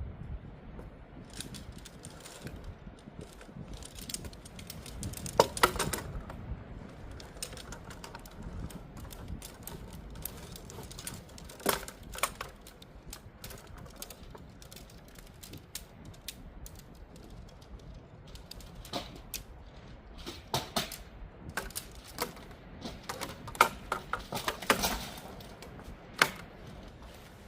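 Scattered sharp clicks, taps and clatter, as of hard objects being handled, coming in clusters about five seconds in, around twelve seconds, and repeatedly in the last third, over a low steady background.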